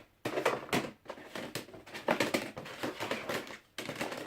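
Plastic floppy disks being sorted through by hand, clacking and rustling against each other in a string of irregular clicks and knocks.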